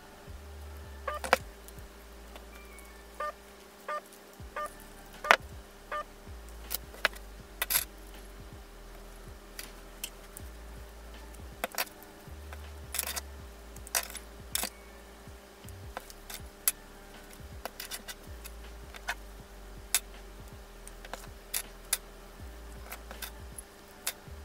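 Metal key fob hardware, split key rings and clasps, clinking and clicking irregularly as it is handled and fitted onto fabric straps.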